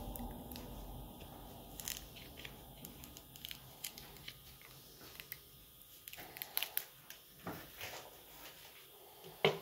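Smartphone battery being pried out of its adhesive with a plastic pry card: irregular small crackles, creaks and clicks as the glue tears, with a sharper knock near the end.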